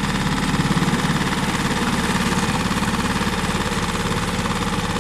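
Mercury 6 hp single-cylinder four-stroke tiller outboard running steadily at low throttle in forward gear, with a fast, even pulsing.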